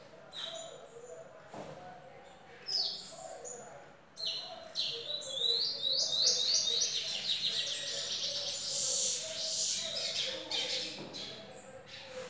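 Caged lesser goldfinch (dominico) singing: a few short high chirps, then from about four seconds in a long, fast, twittering song of rapid descending high notes lasting about seven seconds.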